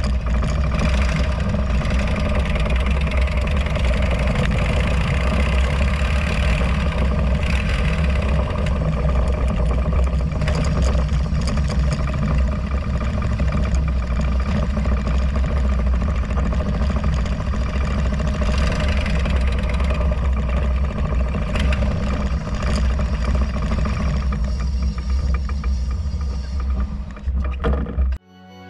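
Harley-Davidson Road Glide's V-twin engine running steadily at low riding speed, a constant low rumble with road noise over it. It cuts off abruptly near the end, where music begins.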